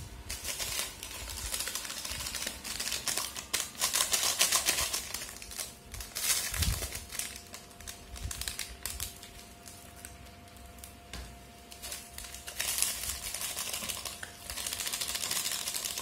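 Foil sachets of Nescafe Classic instant coffee being handled and emptied into a plastic tub: crinkling packaging and a rapid ticking patter, in several spells. There is a single heavier knock about halfway through.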